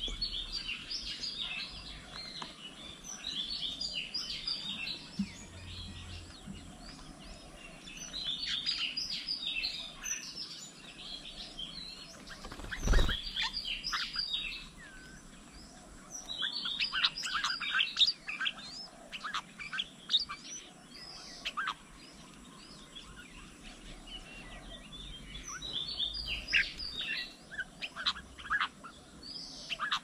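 Songbirds chirping and chattering in quick clusters of short high calls, with one sharp thump a little before halfway.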